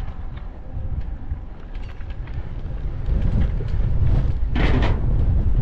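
Wind buffeting the microphone of a riding cyclist's camera, a rumbling rush that gets louder about three seconds in as the road bike picks up speed. A brief hiss of noise comes near the end.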